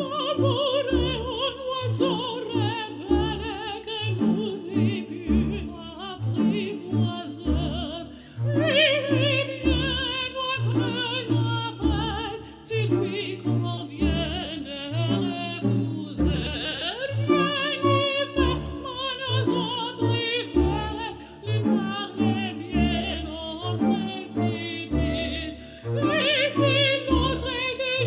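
Background music: an operatic voice singing with strong vibrato over an orchestral accompaniment with a regular pulsing bass.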